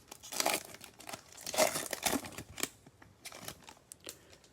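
A Prizm basketball retail card pack's wrapper crinkling and tearing as it is opened, in irregular rustling bursts, loudest about half a second and about two seconds in, then a few light clicks as the cards are handled.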